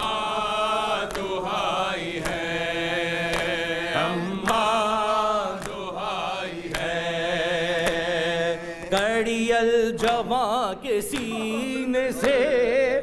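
A noha sung without instruments: long drawn-out vocal notes with a wavering vibrato, with the melody changing about nine seconds in. Sharp beats about once a second run under the singing, from matam, the rhythmic chest-beating of mourners.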